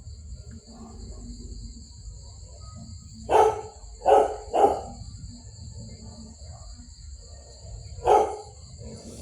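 A puppy barking four times: three quick yaps in a row a few seconds in, then one more near the end.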